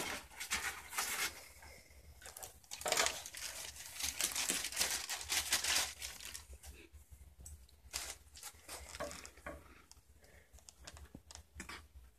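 Irregular rustling, scraping and tearing noises as a black-throated monitor lizard grabs and tugs at a chicken leg, its claws scrabbling on wooden enclosure boards. Busiest in the first half, thinning to scattered scrapes later.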